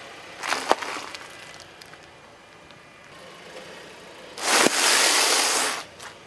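Car tyre rolling over a wrapped chocolate bar, a short crackle with a sharp snap under a second in. About four and a half seconds in the tyre crushes a plastic bag of cornflakes, a loud crunching that lasts over a second as the bag splits.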